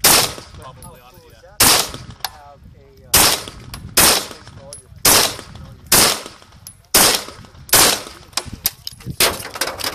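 AR-15 rifle fired semi-automatically, sharp shots coming about once a second. Near the end, quicker and fainter cracks follow in close succession.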